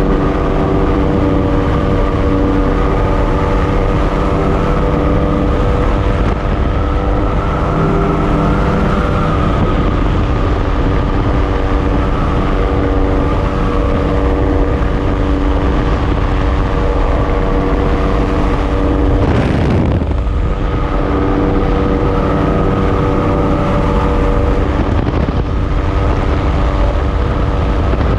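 An engine running steadily at an even speed, with a short rush of noise about two-thirds of the way through.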